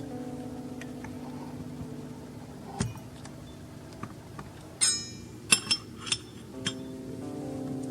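Several sharp clinks of glassware or crockery, one with a short bright ring, about halfway through, over soft background music with held chords.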